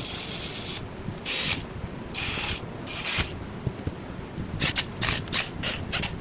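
A series of short, hissy scraping strokes, with several coming quickly in a row near the end, over a steady low rumble.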